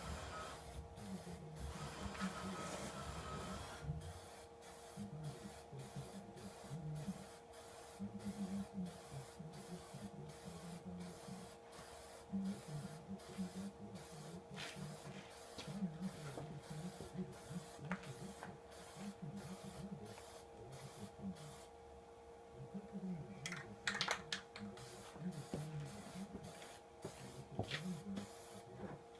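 Aerosol can of black spray paint hissing in short repeated bursts, roughly two a second, with a brief pause a little past the middle. A steady low hum runs underneath.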